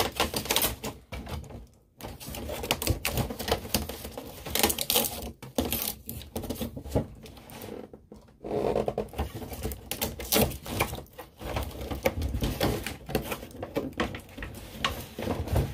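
Hands working at plastic and cardboard toy packaging, making a run of irregular small clicks, taps and rustles.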